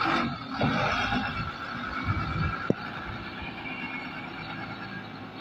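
Heavy cargo truck's diesel engine working under load as the truck crawls along a rutted mud track, louder in the first few seconds and then steadier. There is a single sharp click about two and a half seconds in.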